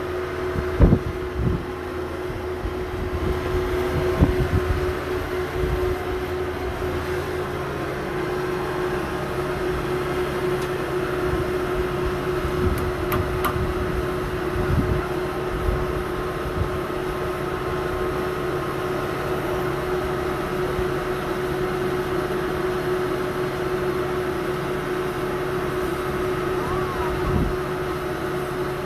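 Skid-steer loader engine running steadily with a constant drone, with a few knocks and clanks in the first several seconds.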